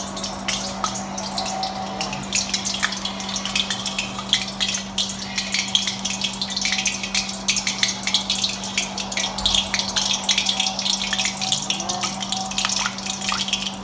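Turon (banana spring rolls) frying in hot cooking oil in a stainless steel wok: a dense crackling sizzle with many small pops, over a steady low hum.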